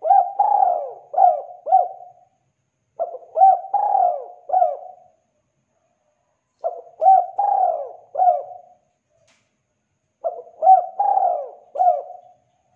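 Spotted dove cooing: four phrases of four or five coos each, about three and a half seconds apart, with short pauses between.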